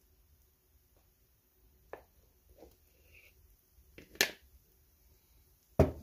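A few sharp knocks and clicks of kitchen things being handled beside a frying pan, the loudest just past four seconds in and a heavier thud near the end, over a faint steady hum.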